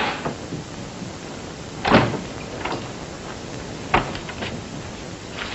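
Door sounds over a steady soundtrack hiss: a single thump about two seconds in, then a sharp latch click followed by a few lighter clicks about four seconds in as a front door is opened.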